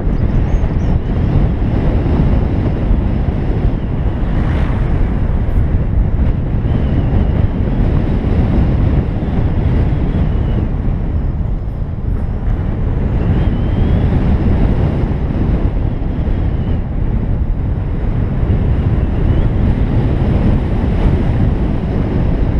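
Steady wind buffeting on the microphone and road noise from a BMW i3s electric car driving along at speed, a heavy, even low rumble with no engine note.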